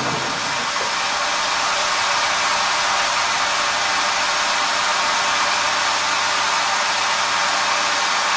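Steady rushing, fan-like noise from the Colchester lathe's inverter drives, running on while the spindle and chuck come to rest.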